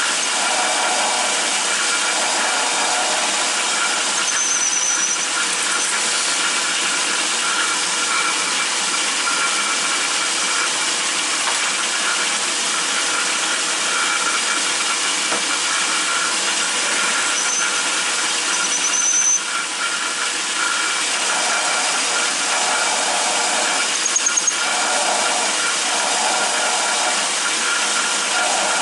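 Atlas 10-inch metal lathe running while a drill bit bores into the end of a backhoe pin, a steady hiss with brief high squeals from the cut a few times.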